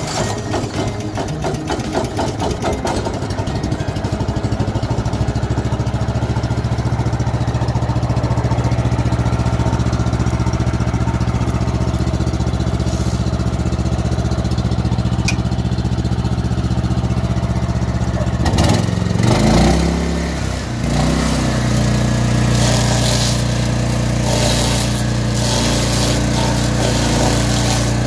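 The 20 hp Loncin petrol engine of a Bernards STG300 stump grinder, running just after its electric start. The firing is uneven for the first few seconds, then settles into a steady run. About two-thirds of the way through, the engine speed dips and recovers, and from then on it runs louder and rougher.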